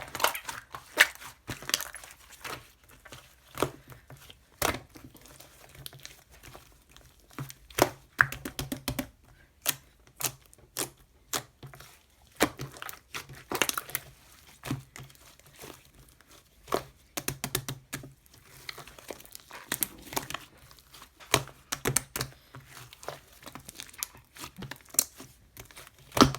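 Glucose slime being handled and squeezed, giving irregular sticky crackles, pops and tearing sounds.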